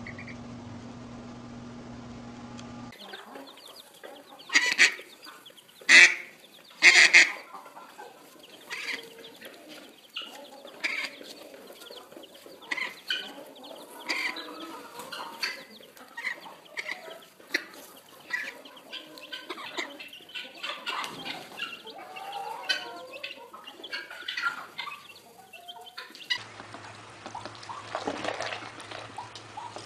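Poultry calling: three loud calls in quick succession, then a long run of shorter, quieter calls.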